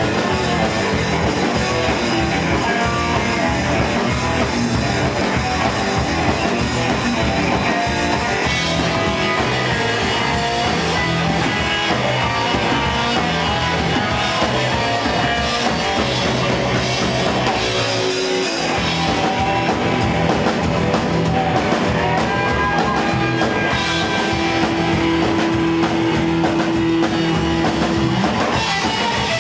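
Live band playing rock and roll: electric guitar over upright bass and a drum kit.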